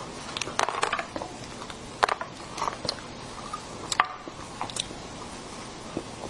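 Irregular sharp cracks and snaps as the thin, hard red shell of a Santa-shaped dessert is broken apart by hand, the loudest about two and four seconds in. Near the end, a spoon clicks as it goes into the dome cake.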